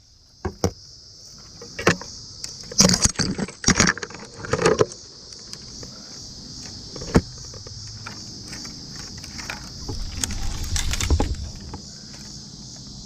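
Steady high-pitched insect drone, with irregular metallic clinks and knocks in short bursts over it.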